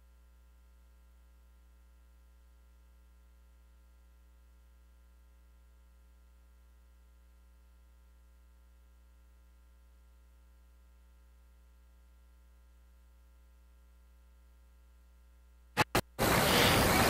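Faint steady electrical mains hum with a few faint steady tones over it, in a dropout of the broadcast sound. Near the end two short clicks, then the loud broadcast sound cuts back in.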